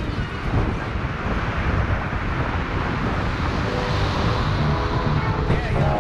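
Wind buffeting the microphone on a moving electric scooter, a dense low rumble with road and traffic noise. Faint music comes in over the last couple of seconds.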